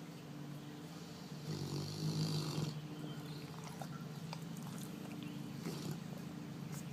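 Large Cane Corso dog snoring in its sleep: a steady low drone, swelling into one louder, breathier snore about two seconds in, with a few faint clicks later on.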